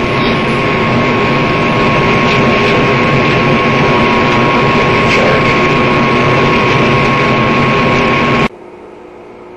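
Loud, steady machine-like rushing noise with a thin steady whine over it, cutting off abruptly about eight and a half seconds in.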